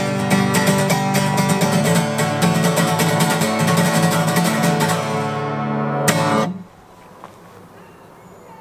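Quickly picked plucked-string music, banjo or guitar, with many fast notes over a steady low bass. It stops abruptly about six and a half seconds in, leaving only quiet background.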